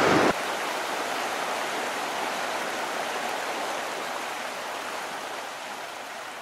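Steady rush of water along the shoreline, with no distinct splashes, slowly fading.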